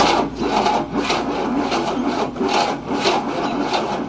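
1967 Cadillac's 429 V8 being cranked by its starter motor, turning over slowly at about two pulses a second without catching. The starter is not cranking fast enough to start it, and the owner suspects the ignition timing is advanced.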